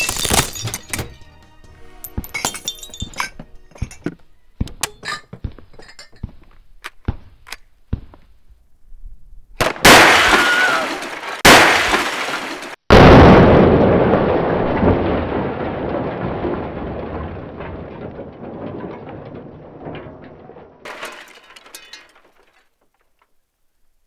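Tannerite explosion blowing a refrigerator apart: three very loud blasts in quick succession, the last trailing off in a long fading tail over about nine seconds. Before the blasts come sharp cracks and knocks over background music.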